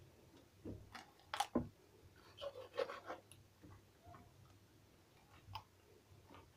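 Faint handling of a whole raw chicken with a knife on a granite counter: a few light, scattered taps and clicks with soft rustling between them.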